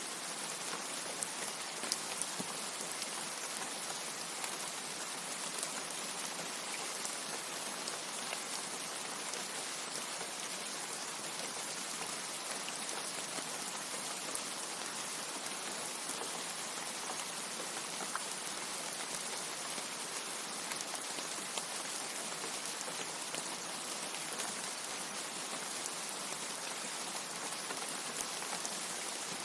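Steady rain falling, a dense even hiss with scattered sharper drop hits and no thunder.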